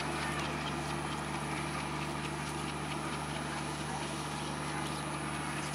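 Bangladesh Railway passenger train running slowly over broad-gauge track, with a steady low drone and many short irregular clacks of the wheels over rail joints and points.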